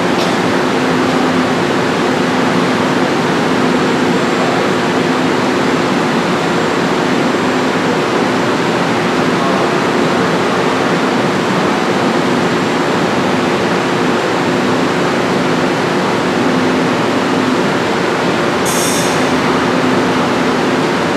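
Subway train standing at an underground platform: a steady hum and hiss from the stopped train's on-board equipment over the din of the station. A brief high-pitched beeping sounds near the end.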